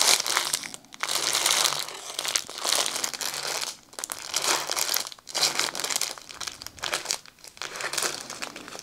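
Small clear plastic bags of diamond painting drills crinkling as a bundled stack of them is handled and turned over, in spells with a few brief pauses.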